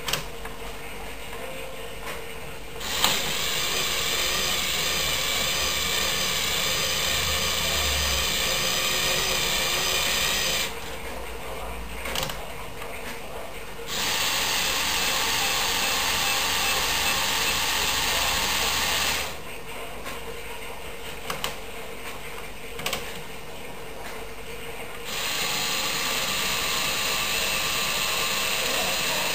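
LEGO Technic Power Functions electric motors whirring through plastic gearing, running in three long bursts of several seconds each with quieter pauses between. A few small clicks come in the pauses.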